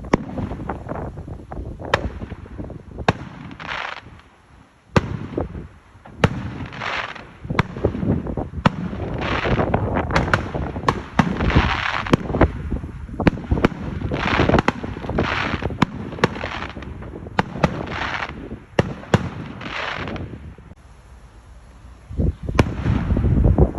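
Fireworks display going off: a rapid series of sharp bangs mixed with longer crackling bursts, easing off briefly about four seconds in and again near the end before a loud bang.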